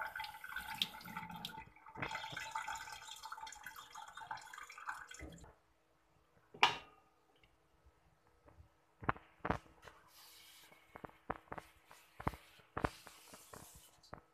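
Tap water running into a stainless steel sink as fish are rinsed by hand, stopping about five and a half seconds in. Then a sharp knock, and a run of light taps and clinks as the fish are laid in an aluminium wok.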